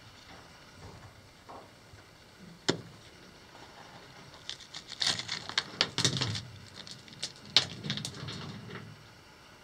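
Loose rock fragments knocking and scraping as a hand picks pieces off a rock wall. There is a sharp click about three seconds in, a run of scrapes and clicks around the middle, and another sharp knock later on.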